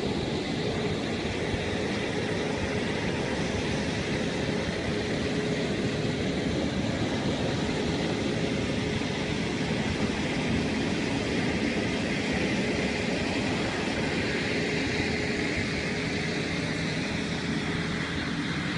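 Articulated dump truck's diesel engine running steadily under load as it drives through shallow river water, with a faint steady whine and the wash of water around the wheels.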